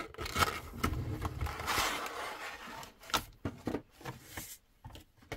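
Cardboard box and clear plastic packaging tray being handled: a scraping slide lasting about a second, then a few light clicks and taps of plastic.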